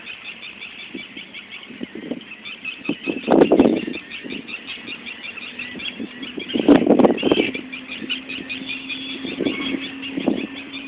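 Steady high chatter of many birds, with two loud gusts of wind buffeting the microphone about three and a half and seven seconds in. A faint low hum joins from about halfway.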